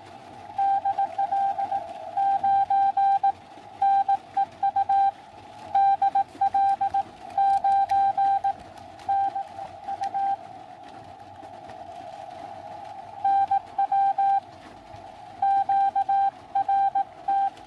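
Morse code (CW) from the Xiegu X6100 amateur radio transceiver: a keyed tone of about 750 Hz beeping in dot-dash runs over a steady filtered band hiss, stopping for about three seconds midway before the keying resumes.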